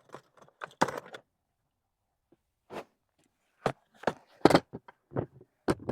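Things being handled and set down while gear is put away: a string of short, irregular knocks and clunks, one about a second in and the rest clustered in the second half.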